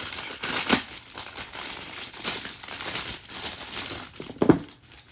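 Plastic packaging crinkling and crumpling in irregular bursts as it is handled and pulled off a fidget toy, with one louder thump near the end.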